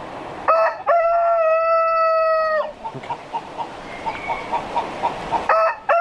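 A rooster crowing: a short first note, then a long, steady held note lasting nearly two seconds. Short clucks repeat about three times a second between crows, and a second crow starts near the end.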